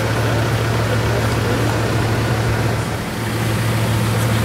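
Bugatti Veyron 16.4 Grand Sport's W16 engine idling steadily with a deep, even hum from the exhaust. The level dips briefly about three seconds in.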